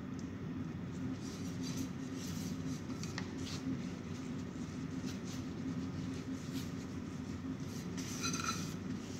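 Steady low machine hum under light taps and scrapes of a small frying pan being tipped and scraped over salmon fillets. Near the end the pan gives a short ringing clink.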